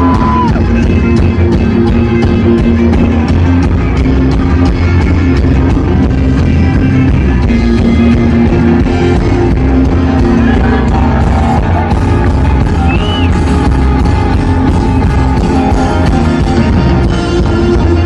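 Loud rock and roll music with guitar, playing without a break.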